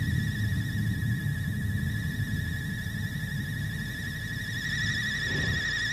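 Cartoon sound effect of a low, continuous rumble with a high, steady, warbling whistle-like tone held above it.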